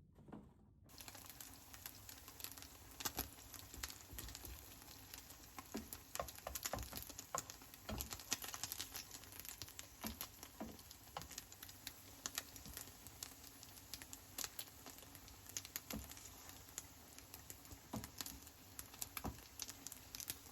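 Irregular light taps and clicks with some rustling, uneven in spacing and strength, over a steady faint hiss: small handling noises such as objects or papers being moved.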